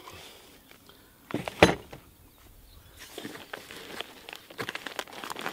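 Paper and plastic hardware packets rustling and crinkling as they are handled and taken out of cardboard boxes, with scattered light clicks and one louder thump about a second and a half in.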